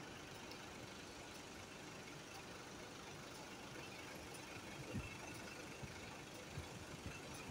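Faint, steady outdoor background noise, with a couple of short low thuds about five seconds in and near the end.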